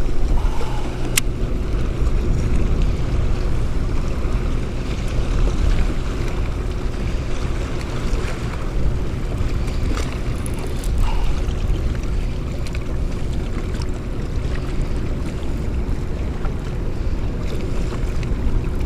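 Wind rumbling steadily on the microphone over choppy water lapping around a fishing kayak, with a few light clicks.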